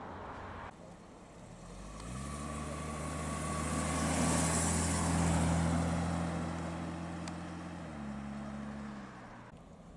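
Series 1 Jaguar XJ saloon pulling up and driving past. Its engine note comes in and rises about two seconds in and is loudest around the middle, with tyre hiss as the car goes by. The pitch steps down about eight seconds in, and the sound fades as the car moves off.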